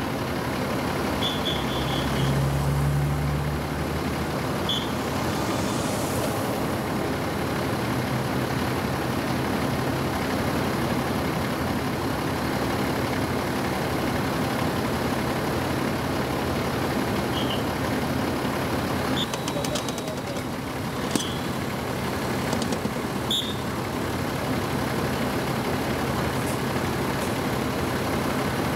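A large vehicle engine idling steadily, with a brief rise about two seconds in. A few short high chirps and a couple of clicks sound over it.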